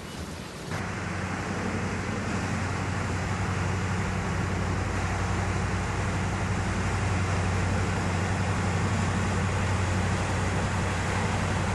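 A river barge's diesel engine droning steadily as the barge passes, over the rushing of water from its bow wave. It starts abruptly about a second in and grows slightly louder.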